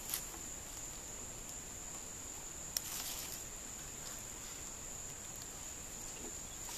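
Rainforest insects droning on one steady high pitch, with a few sharp clicks, the clearest about three seconds in.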